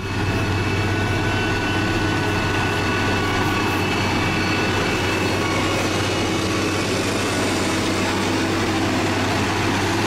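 SANY STG170C-8 motor grader's diesel engine running steadily as the grader spreads asphalt mix with its blade: an even, low engine hum.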